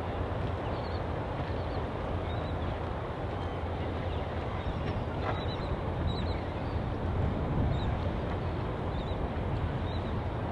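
Steady low drone of a boat motor running, under a constant noisy haze, with short high bird chirps scattered throughout.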